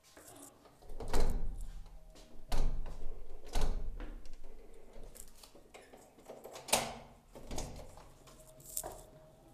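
A door being pushed and pulled by its lever handle against its lock: a series of thuds and rattles, the loudest about a second, two and a half, three and a half and seven seconds in. The door is locked and won't open.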